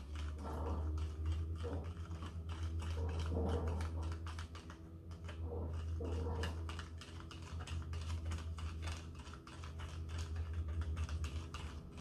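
A stirring straw rattling and clicking rapidly against the inside of a plastic cup, stirring salt into water to dissolve it.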